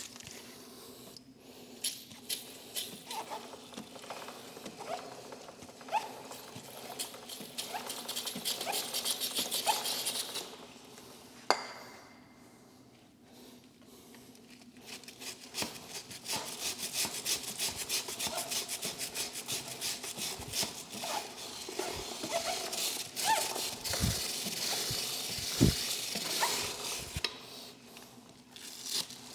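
Motorcycle drive chain clicking rapidly link by link as the rear wheel turns on the stand, with a cloth rubbing over the oily chain. There is a quieter pause near the middle, marked by one sharp click.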